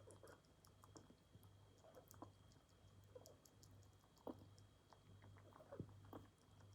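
A rabbit drinking water, making faint, irregular little clicking and lapping sounds with its mouth, over a faint steady low hum.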